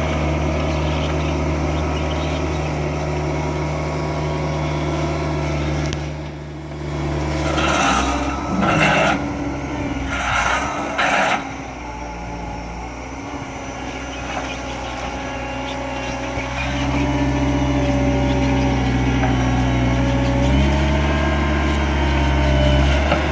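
Skid steer loader's engine running steadily, easing off briefly about six seconds in and then speeding up about two thirds of the way through. A few short harsh bursts of noise come near the middle.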